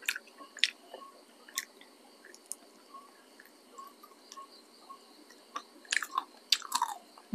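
Close-up chewing of dried smoked beef: irregular small crunches and mouth clicks, with a denser, louder run of them near the end.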